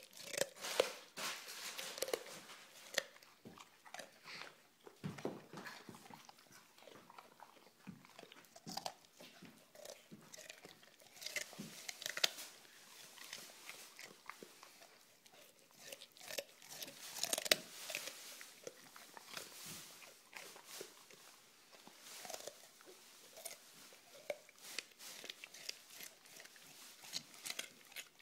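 Pit bull–basset hound mix dog biting and chewing a carrot, with repeated irregular crunches.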